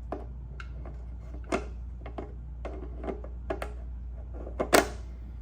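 Small parts of a motorcycle gas-cap ring kit being handled and fitted by hand: a string of light clicks and taps, with a sharper click near the end.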